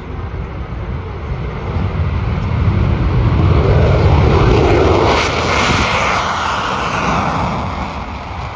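F-22 Raptor's twin F119 jet engines roaring at maximum power during its takeoff. The roar swells to a peak about four to six seconds in, then fades as the jet passes.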